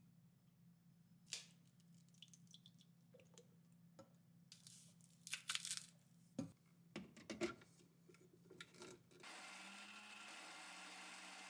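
Scattered light clicks and knocks as ingredients go into a plastic blender jar. About nine seconds in, a small countertop blender starts and runs steadily, puréeing tofu and cashews into a thick cream.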